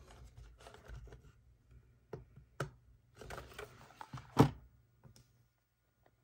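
Hands handling a rugged plastic waterproof tablet case while trying to pry it open: scattered plastic clicks and rubbing, with one louder knock about four seconds in.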